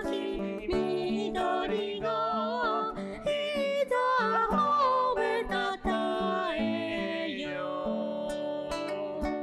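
Music: acoustic guitar strumming and plucking under a sung melody, settling into a held chord near the end.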